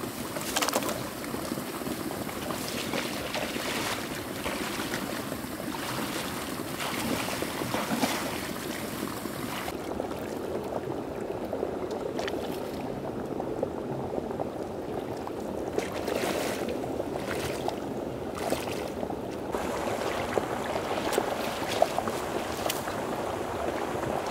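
Water sloshing and splashing continuously, with irregular sharp splashes or knocks.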